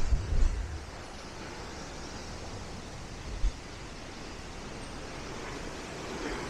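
Steady wash of Black Sea surf and wind, with low buffeting thumps of wind on the microphone at the very start and once more about three and a half seconds in.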